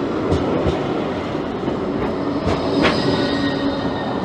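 Blackpool tram running past close alongside, a steady rolling hum with a few sharp clacks of the wheels over rail joints.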